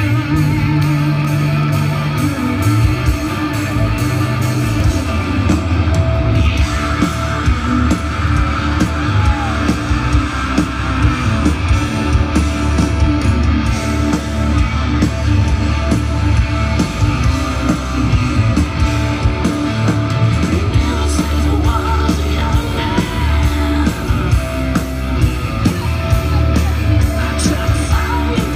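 Live rock band playing loud through a PA, with electric guitars and drums, heard from the crowd.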